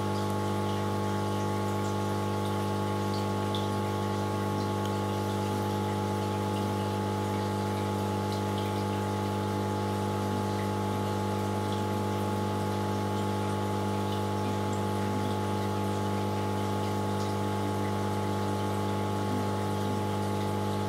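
Aquarium pump humming steadily, with faint water bubbling over it.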